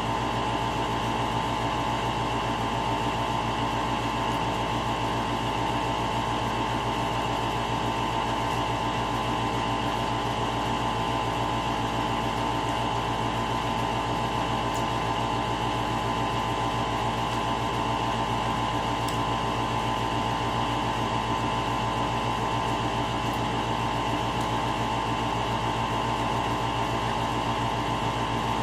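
A steady machine hum that holds several constant tones and never changes in level.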